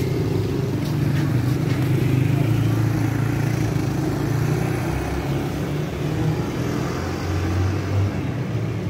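Street traffic: motor vehicle engines running steadily close by, with motorcycles riding past.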